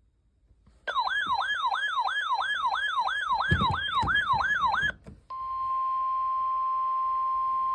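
A weather radio receiver's alarm warbles up and down in pitch, about three to four sweeps a second, for about four seconds. After a short break, the steady 1050 Hz NOAA Weather Radio alert tone begins and holds. Together they signal the weekly test alert.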